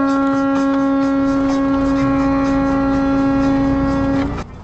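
Truck horn held in one long, steady blast that cuts off abruptly about four seconds in, over low road rumble.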